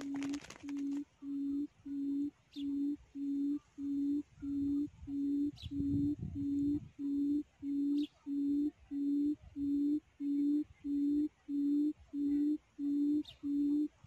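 Quail lure call: one low, pure hooting note repeated evenly a little under twice a second, sounding at the trap to draw quail in. A few faint high chirps are heard now and then.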